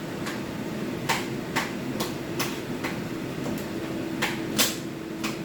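A spoon knocking and clinking against a cooking pot: about ten sharp clicks at uneven intervals, over a steady low hum.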